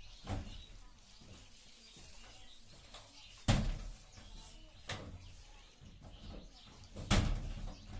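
A few knocks and thumps in a quiet room, like a cupboard door or things being handled: two louder thumps about three and a half seconds in and near the end, with lighter knocks between.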